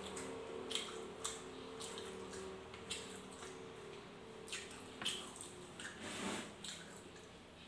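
Eating by hand: wet chewing and mouth smacks, with scattered soft clicks as he chews rice. A faint steady hum sits underneath for the first few seconds.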